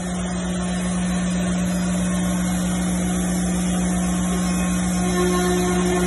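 CNC router starting up and running: the machine comes up to speed over about the first second, then runs steadily with a strong hum, a pulsing low rumble and a hiss. A higher steady tone joins about five seconds in.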